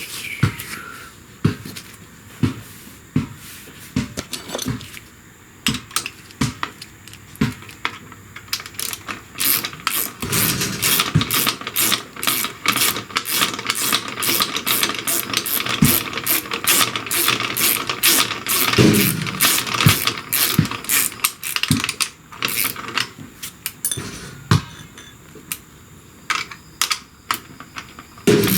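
Hand ratchet wrench clicking while a shifter bolt is tightened, with scattered knocks of tools on metal. The clicks come in a steady run of about three a second through the middle.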